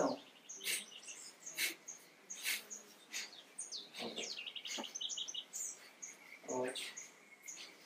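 Short, sharp exhalations of kapalabhati (breath of fire) breathing, about one a second, each pushed out by a pull of the belly. Birds chirp in the background.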